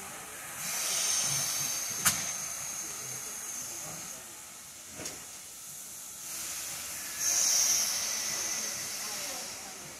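Steam locomotive hissing, letting off steam in two spells about a second or two long, with two sharp clicks in between.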